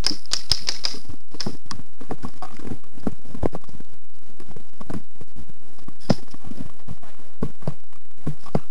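Footsteps and knocking of carried gear on a person moving on foot, heard close up: irregular clicks and thuds, with a quick cluster of clicks at the start.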